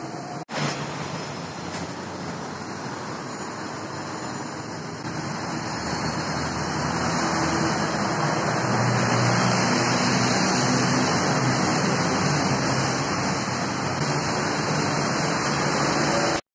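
Steady road traffic noise, a continuous rush with a faint low engine hum, growing louder about five seconds in.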